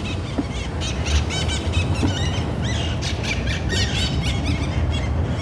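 Birds calling with many short, high chirps over a low, steady rumble.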